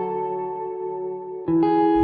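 Background music: a guitar chord rings out and a new chord is struck about one and a half seconds in.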